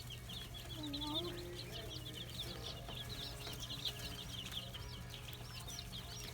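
Many baby chicks and ducklings peeping at once, a continuous crowd of short high-pitched cheeps, over a steady low hum.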